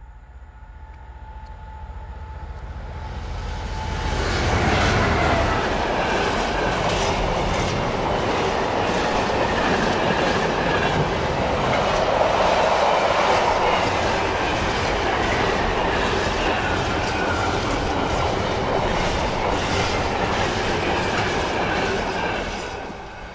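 Class 66 diesel locomotive approaching and passing at the head of a container freight train, growing louder over the first few seconds. A long string of container wagons then rolls by with a steady, rhythmic clatter of wheels on the rails, fading near the end.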